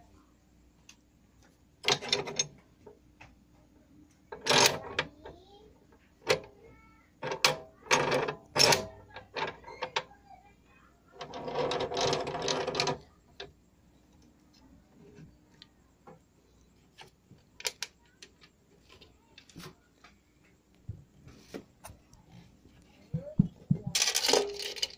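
Scattered clicks, knocks and rattles of a JCK cut-off saw's metal fittings being handled, with a longer scraping rattle about halfway through and another cluster of clicks near the end.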